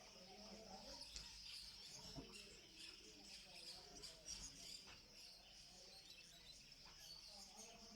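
Faint, steady chatter of many small cage birds: a dense chorus of rapid high chirps.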